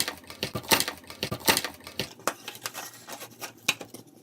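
Toy packaging being handled and opened: a quick run of clicks, scratches and crackles of plastic and cardboard, busier in the first two seconds and thinning out after.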